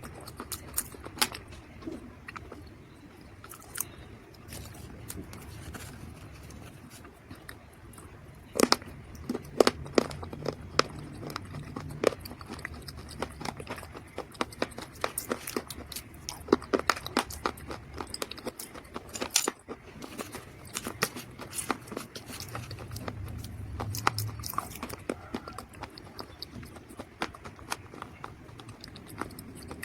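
Dried mud or clay crunching and crackling in a steady run of small, sharp cracks, with a denser, louder burst about a third of the way in and another just past halfway.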